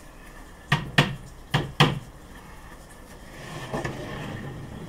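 Four sharp wooden knocks in two quick pairs, about a second in and again half a second later, as the plywood hive panels and pegs are tapped into place. A softer scraping and shuffling of the plywood panels being handled follows near the end.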